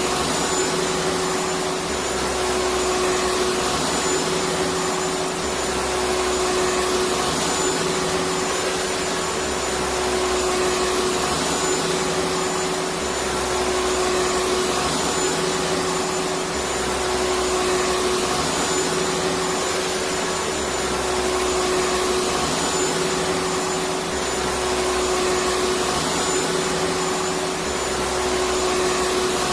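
Electric vacuum cleaner running continuously: a steady rushing of air with a constant motor whine, swelling slightly about every two seconds.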